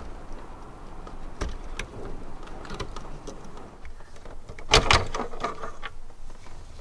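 Plastic clicks and rattles as a small dashboard switch pod is worked loose and its wiring connector unplugged, with a few sharp clicks and then the loudest cluster of clacks about five seconds in.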